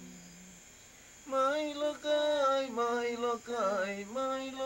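An icaro, the chanted healing song of an ayahuasca ceremony, sung solo without instruments. A low held note fades out in the first half-second; after about a second of pause the singing comes back higher, as long held notes with slides between them.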